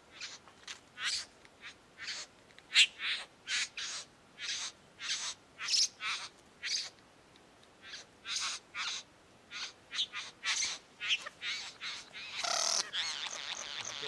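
Male satin bowerbird giving courtship calls to a female at his bower: a long run of short, harsh notes, irregularly spaced, then about twelve seconds in a louder, continuous stretch of wavering calls.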